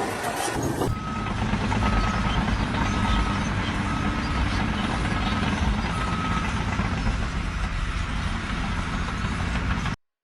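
Engine of a heavy vehicle running steadily while its reversing alarm beeps six times, about once a second, then the beeping stops and the engine runs on until the sound cuts off suddenly near the end.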